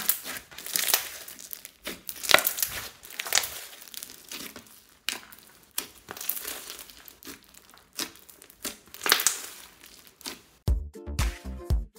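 Hands squeezing and kneading clear slime packed with foam beads and small charms: wet, crunchy crackling squishes in irregular bursts, some sharper than others. Near the end, electronic music with a steady beat cuts in abruptly.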